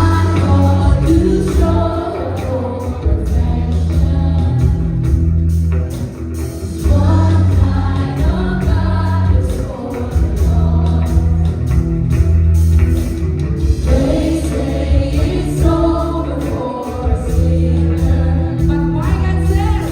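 Live worship band and singers performing a contemporary gospel song, with a steady bass line and sung phrases that pause briefly twice.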